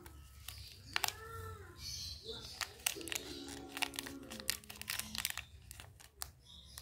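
Plastic candy wrappers crinkling and crackling in a run of small clicks as the wrapped marshmallow pack and lollipop are handled.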